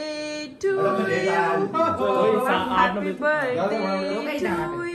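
Several people's voices at once, talking and singing loosely over one another, with a few long held notes.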